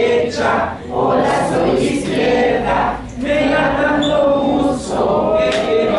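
A crowd of adults singing a children's action song together, in phrases about two seconds long with short breaks between them.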